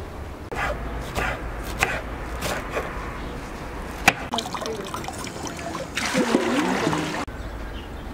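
Kitchen knife chopping fresh green herbs on a wooden cutting board: irregular knocks of the blade on the board, a denser spell of quick chopping and rustling of leaves later on, stopping abruptly near the end.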